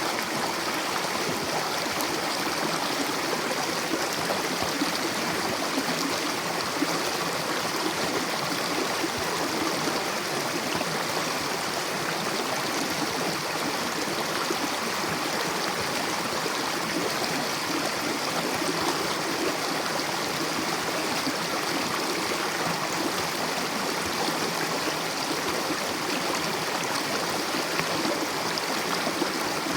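Mountain river rushing over rocks, a steady, unbroken water noise with light gurgling.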